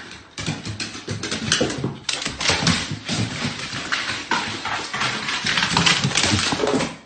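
A dog indoors, with many quick clicks and scuffs and a few short pitched sounds.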